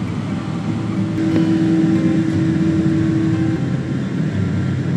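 Steady airliner cabin noise from the jet engines and air conditioning as the plane taxis before takeoff, a low hum with a steady tone that comes in about a second in and drops out a couple of seconds later.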